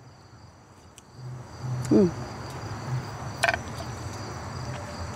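Insects trilling steadily in the background while someone chews food close to the microphone, with a short hum of enjoyment about two seconds in.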